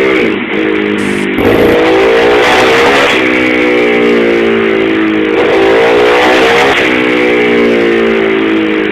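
Small pit bike engine revving hard, its pitch breaking and dropping back and then climbing again about every one and a half to two seconds.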